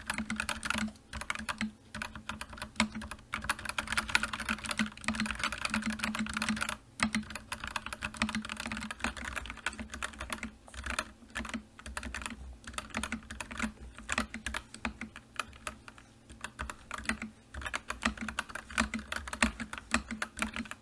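Fast typing on a computer keyboard: a dense run of key clicks, with brief pauses about a second in and about seven seconds in.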